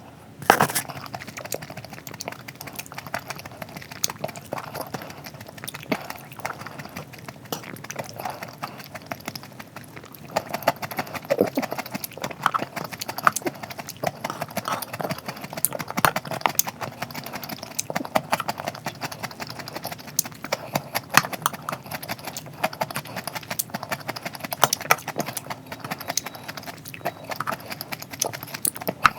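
Close-miked eating: chewing and crunching food, with a dense, irregular run of sharp wet mouth clicks throughout.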